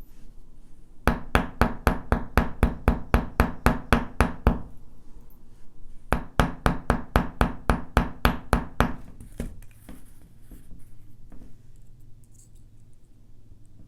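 Hammer striking a bent wire S-clasp to flatten and straighten its loops: two runs of quick, even taps, about four a second, with a short pause between, followed by a few faint clicks.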